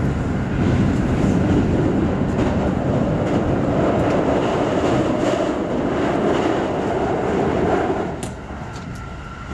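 Keikyu commuter train heard from inside the carriage, running at speed over a steel truss bridge: a loud, steady rumble of wheels on rail. About eight seconds in, as the train comes off the bridge, the rumble drops noticeably and a few sharp clicks follow.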